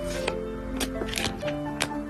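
Soft background music with about four crisp clicks and rustles of photocards and plastic sleeves being handled.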